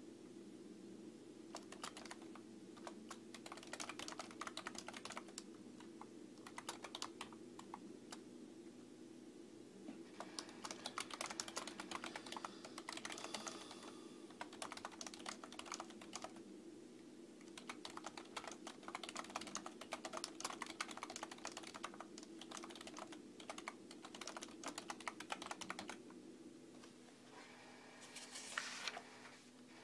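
Typing on a desktop computer keyboard: bursts of quick key clicks with short pauses between phrases, over a steady low hum.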